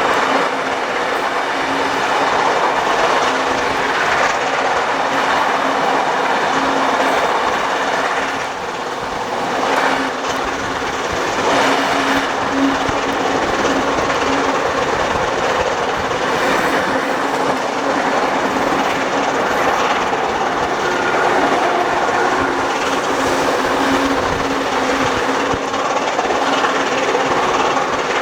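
Carriages of a heritage passenger train hauled by steam locomotive 3801 running along the track: steady rail and wheel noise with some clickety-clack, and a steady low hum that comes and goes.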